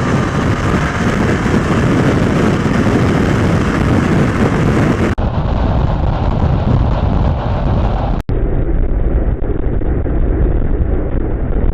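Heavy wind rush on the microphone of a motorcycle ridden at highway speed, with engine and road noise underneath. The sound drops out for an instant twice and turns duller after about five seconds.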